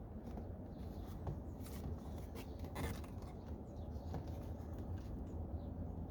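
Scattered light plastic clicks and handling noises as hands work the squeeze-tab clip of a wiring harness connector on a door panel, over a steady low rumble.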